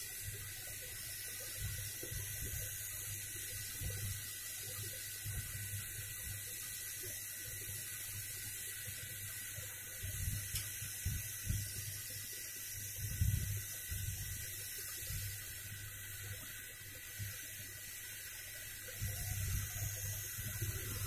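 Hot-air rework gun blowing a steady hiss of hot air onto the motherboard, with a faint steady high tone, desoldering the two shorted VRM MOSFETs.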